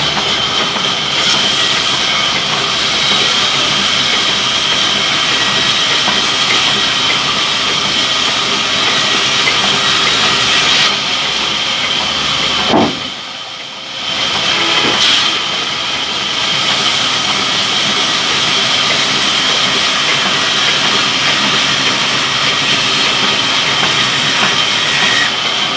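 Sawmill saw running through a log: a loud, steady hiss with a high whine held over it, which dips briefly about halfway through.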